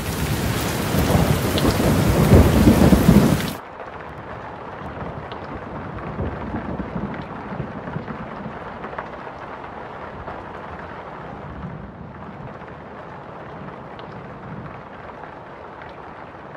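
Rain with a low rumble of thunder swelling over it, loud at first. It cuts off abruptly about three and a half seconds in, and a quieter, duller steady rain patter with faint scattered drop ticks goes on after that.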